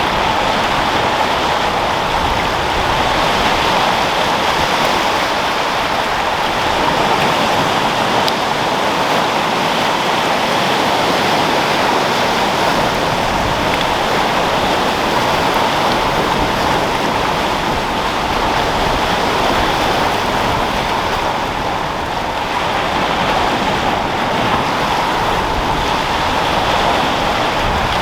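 Sea waves rolling and breaking in a continuous, steady rushing wash, with wind, easing briefly about three-quarters of the way through.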